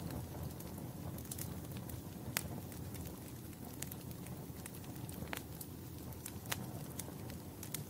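Wood fire crackling in a fireplace: a low steady rumble of burning logs with sharp pops scattered through it, roughly one every second or so.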